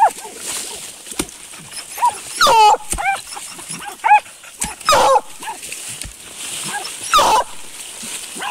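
Hunting dog barking and yelping in about five short, high calls spread unevenly, baying at a paca holed up in its burrow.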